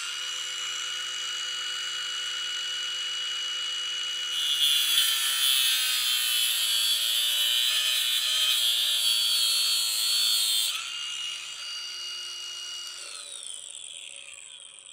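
Ryobi cordless angle grinder with a cutoff wheel spinning up with a steady whine. From about four seconds in it cuts through braided stainless steel hose for about six seconds: the sound turns louder and harsher, and the motor pitch sags under the load. It then runs free again and winds down, its whine falling near the end.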